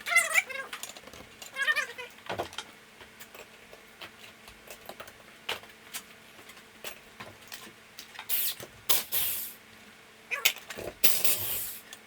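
A cat meowing twice in the first two seconds, with scattered sharp clicks and two longer bursts of hissing later on.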